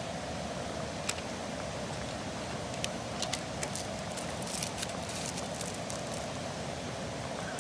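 A pot of instant chicken ramen simmering over a camp cooking flame: a steady rushing hum with scattered small pops and ticks, several close together about halfway through.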